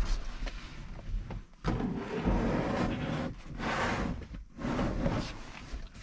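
Portable plastic car fridge being pushed and shuffled into the gap between a van's front seats. A sharp knock comes first, then several rough stretches of its casing scraping against the seats and floor.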